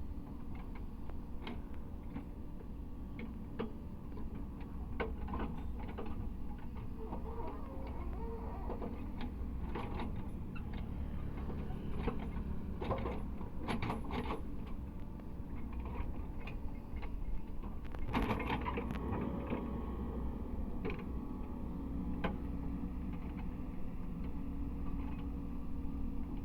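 Cat 307E2 mini excavator's diesel engine running steadily, with scattered clanks and knocks, loudest about halfway through and again a few seconds later.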